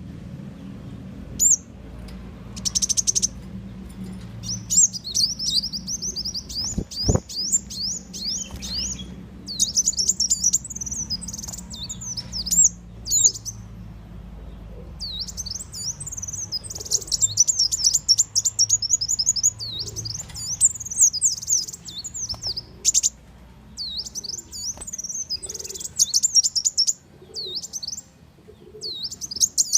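Brown-throated sunbird (muncang, or kolibri wulung) song played as a trapping lure call: rapid runs of high, thin chirping notes in bursts broken by short pauses. A single sharp click comes about seven seconds in.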